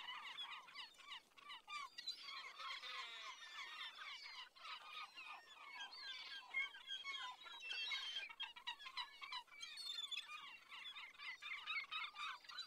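A flock of birds calling at once: a dense, quiet chatter of many overlapping short chirps and squawks that never lets up.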